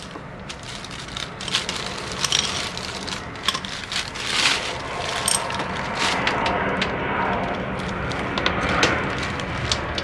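Irregular clicks, knocks and rustling from hands and tools at work on a motorcycle, set up for an oil change, over a steady low hum.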